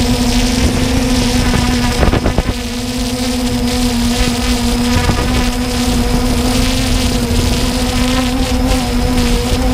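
Multirotor drone's motors and propellers humming at one steady pitch, with a short crackle of noise about two seconds in.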